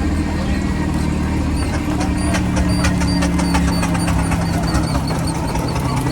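An engine running steadily with a low hum. Its pitch shifts slightly partway through.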